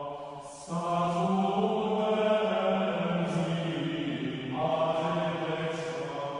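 Background music of a vocal chant: voices holding long, slow notes over a steady low drone. The chord shifts about a second in and again about four and a half seconds in.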